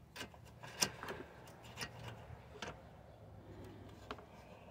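Small irregular metal clicks and taps from a Honda HR215 lawnmower's carburetor and its wire linkage rods being worked by hand, about half a dozen in all, the loudest about a second in.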